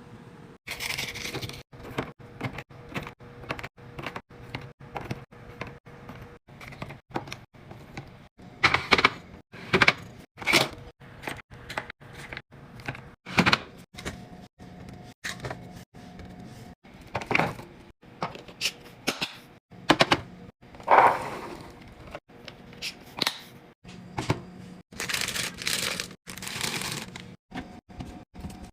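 Snack packets and plastic containers handled and set down while restocking a fridge: an irregular run of sharp clicks and knocks, with a few longer stretches of rustling packaging.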